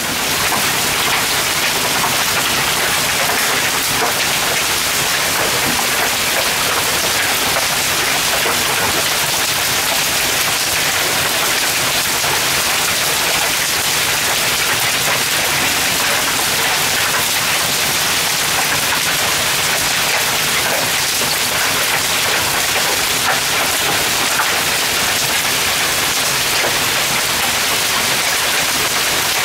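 Heavy hail and rain falling, a steady dense rush with many small hailstone hits mixed in.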